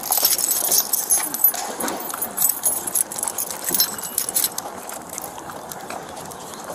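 Keys and metal gear on a walking police officer's duty belt jingling and clinking with his steps.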